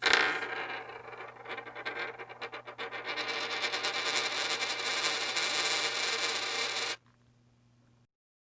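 A coin spun on a hard surface: a sharp strike at the start, then a wobbling rattle that speeds up and grows louder into a continuous whir. It stops abruptly about seven seconds in as the coin settles flat.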